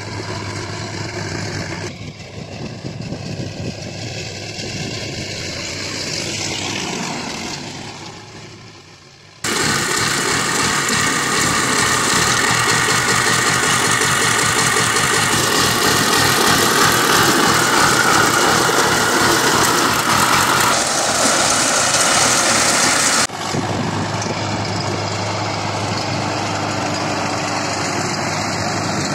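Diesel farm engines at work in a field. First a Sonalika tractor pulling a rotary tiller, fading out about nine seconds in. Then a walking power tiller's diesel engine running loud for some fourteen seconds, and near the end the tractor and its rotary tiller again, close up and steady.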